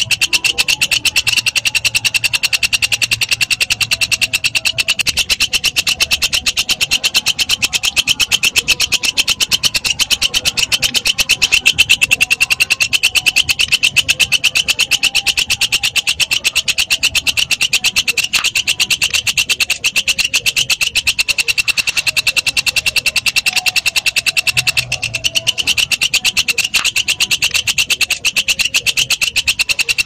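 Walang kecek, a green katydid (bush cricket), stridulating in one continuous train of rapid, evenly spaced high-pitched pulses.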